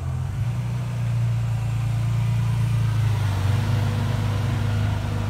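Ferrari Testarossa's flat-12 engine running steadily at low revs as the car rolls slowly past, with a slight swell midway.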